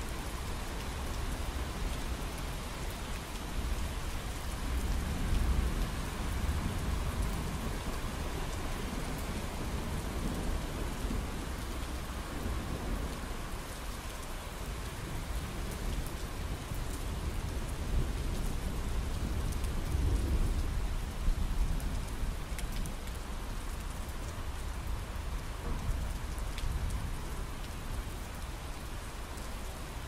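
Steady rain falling, with low rumbles of thunder swelling up twice, about five seconds in and again around twenty seconds in.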